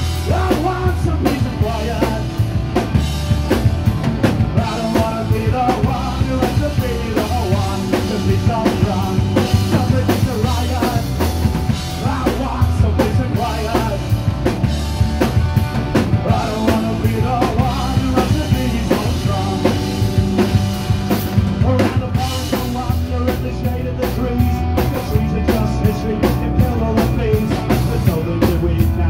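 Live rock band playing loudly: a drum kit keeping a steady beat with bass drum and snare, electric guitars and bass guitar, and a man singing into a microphone.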